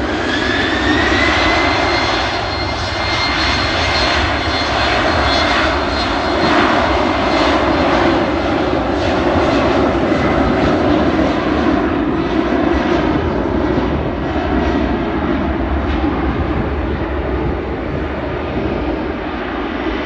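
Embraer E190 jet airliner's twin GE CF34-10E turbofans at takeoff power: a loud, steady roar with a high whine that rises over the first couple of seconds and then holds, easing slightly near the end.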